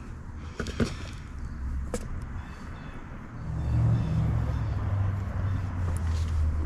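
Low rumble of a motor vehicle's engine, swelling about three and a half seconds in and holding steady, with a few light clicks before it.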